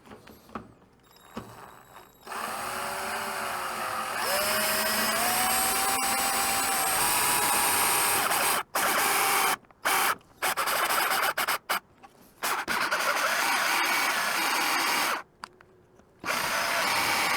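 Power drill boring a hole in a reverse light housing for a fourth brake light bulb. The motor starts about two seconds in, rises in pitch and then runs steadily, with several brief stops and restarts in the second half.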